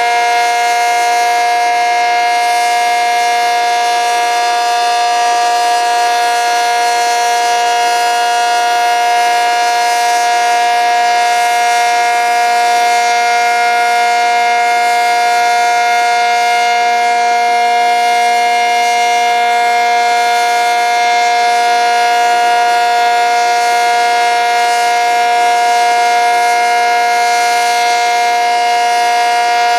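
ACA Cyclone 125 omnidirectional outdoor warning siren sounding its steady alert signal: a loud, unwavering chord of several held tones that neither rises nor falls.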